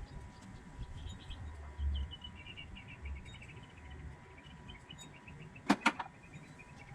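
A small bird chirping quickly and repeatedly. There are a couple of low thuds, and near the end two sharp clicks in quick succession, the loudest sounds.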